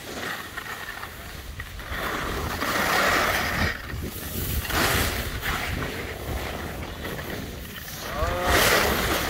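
Skis scraping and hissing over packed snow while skiing downhill, with wind rushing across the microphone; the scraping swells louder with the turns, about two to three seconds in, around five seconds, and near the end.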